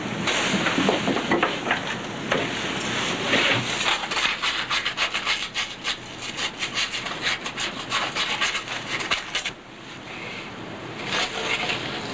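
Rubbing and scraping strokes on a hard surface, settling into a quick, even rhythm of several strokes a second, then stopping near the end.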